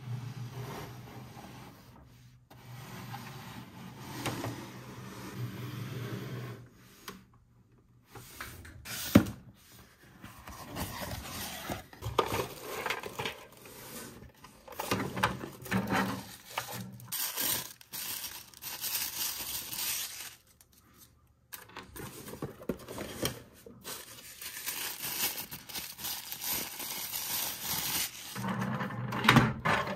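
Hands unboxing plastic toys: plastic parts scraping and knocking on a tabletop, then tissue paper rustling and crinkling as small pieces are unwrapped from a cardboard box, with one sharp knock about nine seconds in.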